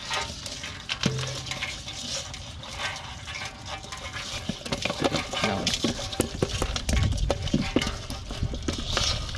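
Irregular taps and clatter of live catch in a plastic basin: small fish dropped in among snails and crabs, knocking against the plastic and each other, busier in the second half.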